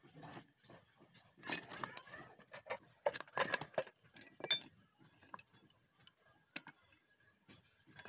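Loose metal bars clinking and clanking against each other as they are pulled from a forge pit and set down on the ground. A run of light metallic clinks, thickest between about one and a half and five seconds in, then a single sharp clink about six and a half seconds in.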